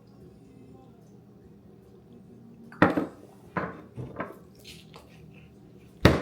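Glassware knocking and clinking on a hard surface: sharp knocks about three seconds in, two more over the next second and a half, and a loud one near the end, over a low steady room hum.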